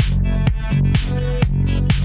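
Electronic dance music with a steady beat over a sustained bass.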